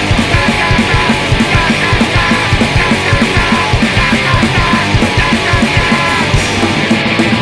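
Fast punk rock recording played from a cassette rip: distorted electric guitars and bass over a steady, driving drum beat, loud and continuous.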